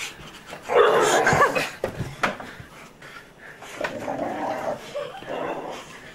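A dog vocalizing, loudest about a second in and again more quietly near the end, with a couple of sharp knocks about two seconds in.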